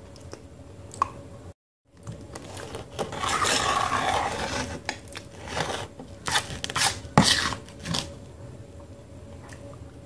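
Metal spoon scraping and scooping thick Multani mitti (Fuller's earth clay) paste in a steel bowl. There is a stretch of scraping about three seconds in, then several sharp clinks of the spoon against the bowl between about five and eight seconds. The sound cuts out briefly near two seconds.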